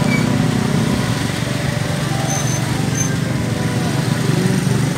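Vehicle engine running steadily amid street traffic noise.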